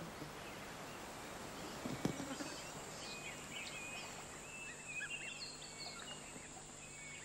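Outdoor bush ambience of small birds chirping and twittering in many short calls, starting about three seconds in, over a steady high hiss. A single sharp knock sounds about two seconds in.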